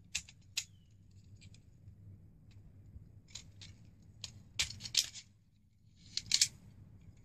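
Small plastic clicks and snaps from a Transformers Galvatron toy's hinged parts being folded and pushed into place as it is converted from robot into car mode. The clicks come singly and in short clusters, most of them around the middle and near the end.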